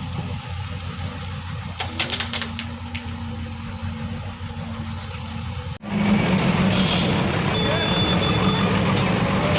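Diesel engine of a demolition bulldozer running steadily, with a few sharp knocks about two seconds in; about six seconds in the sound breaks off abruptly and comes back louder and rougher.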